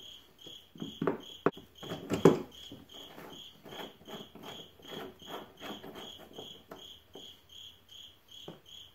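Channel-lock pliers clicking and scraping on the key switch nut in a plastic tractor dash as it is loosened, with two sharper knocks about one and a half and two seconds in. A cricket chirps steadily about two and a half times a second throughout.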